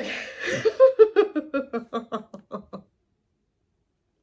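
A woman laughing: a run of quick ha-ha pulses, about six a second, falling in pitch and cutting off about three seconds in.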